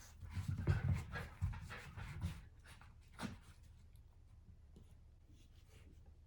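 Miniature dachshund panting and snuffling: a run of quick, breathy puffs in the first half, with one more about three seconds in.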